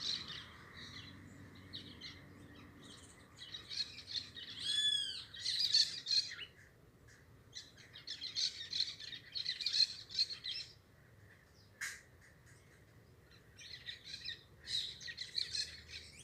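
Parakeets chattering in several bouts of rapid warbling chirps with short pauses between them, with a few whistled up-and-down notes about five seconds in. A single sharp click comes near the twelve-second mark.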